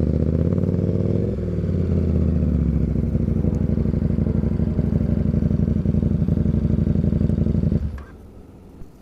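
KTM 1290 Super Duke's V-twin engine running steadily through an Austin Racing exhaust with the dB killer removed, loud, with a brief dip and rise in engine speed just over a second in. The engine cuts off suddenly near the end.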